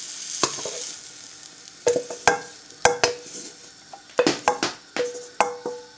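Wooden spatula scraping and knocking against a non-stick frying pan as fried vegetables are pushed out, about ten sharp knocks, each leaving a short ring from the pan. A faint sizzle fades out in the first second.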